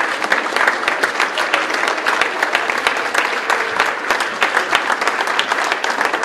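Audience applauding steadily, a dense stream of many hands clapping.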